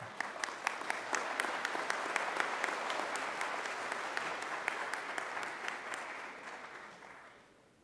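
Audience applauding in a large hall, many hands clapping together, fading out about seven seconds in.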